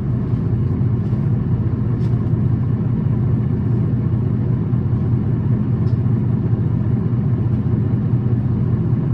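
Tokyu city bus H854's engine and drivetrain running steadily, a continuous low drone with no change in pitch. This bus is listed by its recorder as one that makes an unusual running noise and runs at high revs.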